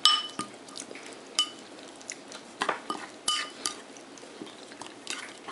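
A metal spoon stirring thick sour cream and dill sauce in a bowl, clinking against the bowl's side several times with short ringing tones, with soft scraping between.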